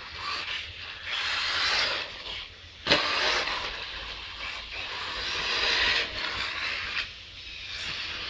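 Radio-controlled off-road car running on a dirt track, its noise swelling and fading as it moves around the circuit, with one sharp knock about three seconds in.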